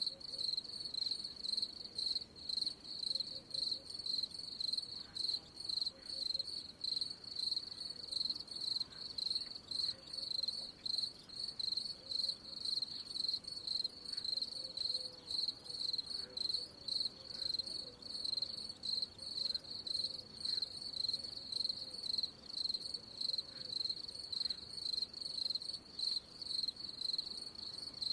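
Cricket chirping steadily, a high-pitched chirp repeated about twice a second.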